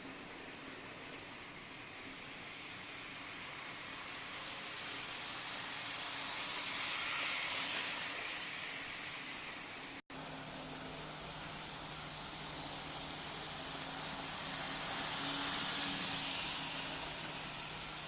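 Model train running on its track, a hissing wheel-and-rail noise over a faint motor hum that swells and fades twice as it passes. A brief break in the sound about ten seconds in.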